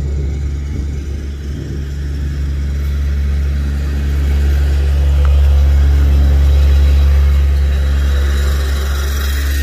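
Caterpillar 950 wheel loader's diesel engine idling steadily. It grows louder around the middle and eases off slightly near the end.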